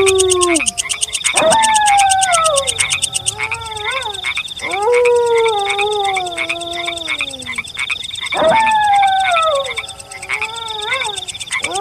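Several wolves howling together in overlapping long calls at different pitches, each sliding up sharply and then falling slowly; three rounds of howls, a few seconds apart. Behind them runs a steady, rapid trilling chorus of night creatures.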